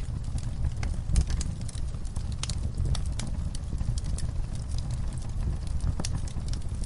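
Logs burning in a fireplace: a steady low rumble of the flames with scattered sharp crackles and pops of burning wood, several a second.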